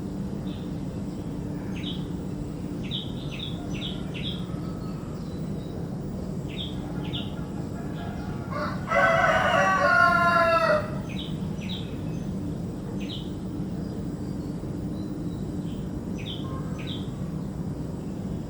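Birds calling: short high chirps come and go throughout, and midway one much louder, longer call lasts about two seconds, over a steady low hum.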